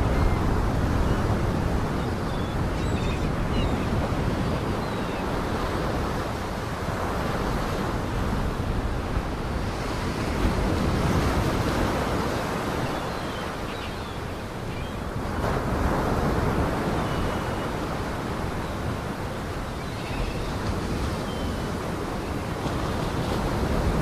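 Lake Michigan waves washing in over the shore, with wind; the rushing noise swells and eases every few seconds.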